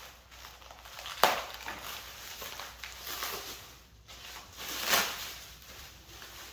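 Packaging being handled and unwrapped, with crinkling and rustling and a sharp snap about a second in, as a boxed engine part is taken out.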